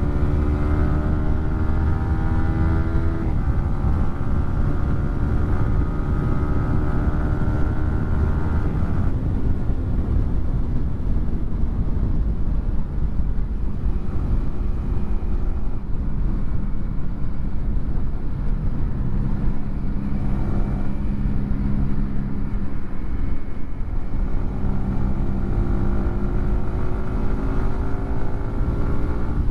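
Yamaha R15 M's single-cylinder engine through a WRX GP3 aftermarket exhaust, accelerating with rising revs and a quick upshift about three seconds in. Near the middle the throttle closes and wind noise takes over, with the engine running low, and near the end it pulls away again with the revs climbing.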